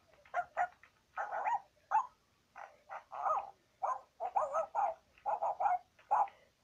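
High, puppy-like yapping barks: about a dozen short yaps in quick, uneven succession.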